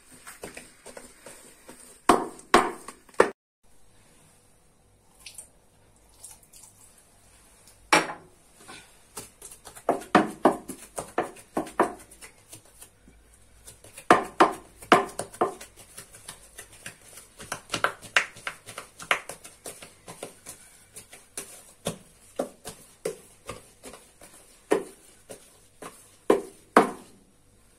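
Sharp knocks and taps from kitchen utensils at work, in irregular runs, some quick runs of several a second.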